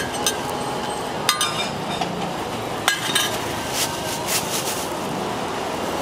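Metal spatula clinking against a roti griddle and cart: a few sharp metallic clinks, one ringing briefly about a second in.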